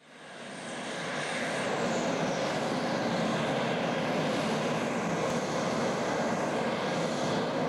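Jet aircraft engines running on the flight line: a steady roar with a faint high whine, fading in over about the first second.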